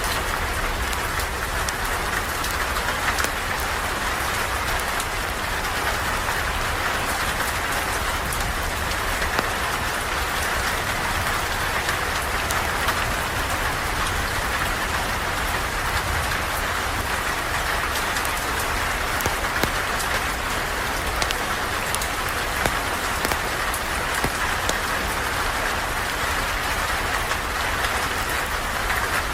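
Steady rain falling: a continuous, even hiss with a low rumble underneath and scattered small ticks.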